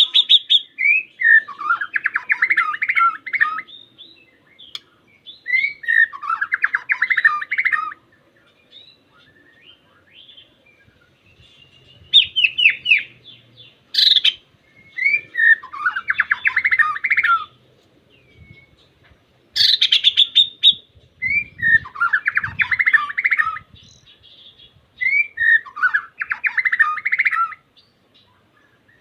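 White-rumped shama (murai batu) singing in repeated bursts of rapid, chattering phrases, each two to three seconds long, about six in all with short pauses between. It is the song used to call out a rival.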